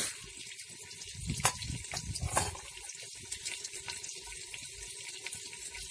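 Mutton and masala sizzling steadily in a brass pot, with a few sharp knocks of a metal spoon against the pot, the loudest right at the start.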